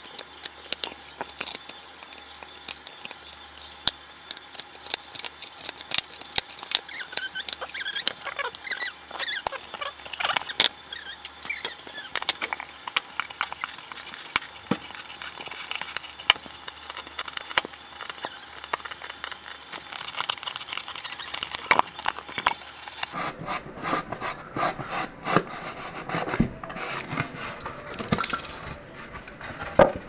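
Utility knife blade sawing through a polystyrene foam ice box lid: continual scraping and squeaking of the blade in the foam. The crackling and rubbing grow heavier in the last seven seconds or so.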